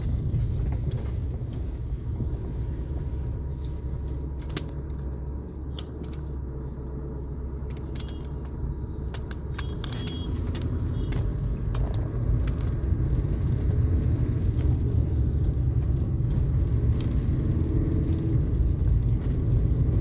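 Road noise inside a moving car on a rough, dusty road: a steady low rumble of tyres and engine, with light clicks and rattles from about 4 to 12 seconds in. The rumble grows louder after about 12 seconds.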